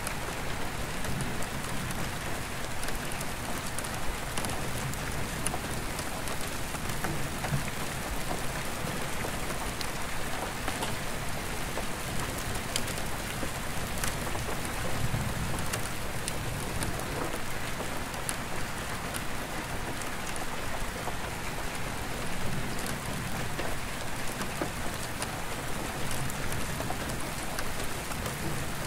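Steady rain drumming on a roof skylight's glass, with many sharp individual drop ticks. Low rumbles of distant thunder swell up now and then.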